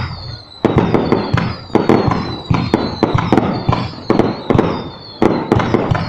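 Aerial fireworks display: shells bursting in quick succession, about eight loud bangs in six seconds, each followed by crackling.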